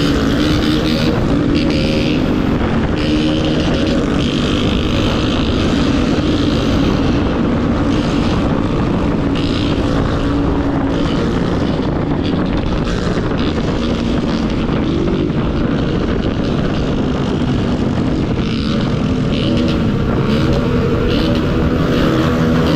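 Motorcycle engine running steadily while riding, its pitch shifting slightly near the end.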